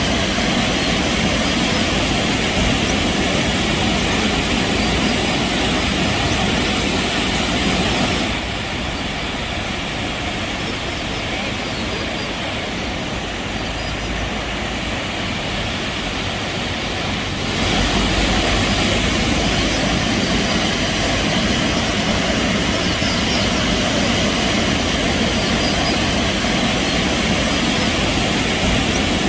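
Sambuyeon Falls pouring in a steady, loud rush of falling water. About eight seconds in the rush turns quieter and duller for some nine seconds, then comes back full.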